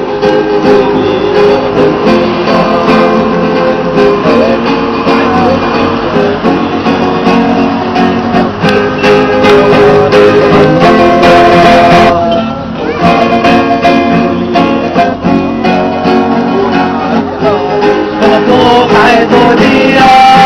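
Music: an instrumental stretch of a song carried by plucked and strummed guitar.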